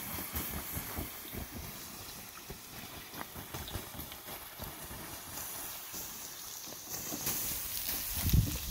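Wind rumbling on the microphone over a smouldering wood fire. About seven seconds in, water poured from a plastic jug onto the hot embers and ash starts a loud hiss, with a low thump near the end.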